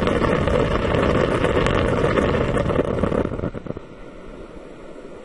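Humidifier water bubbling, a dense crackling stream of bubbles that drops off about three and a half seconds in to a softer bubbling hiss.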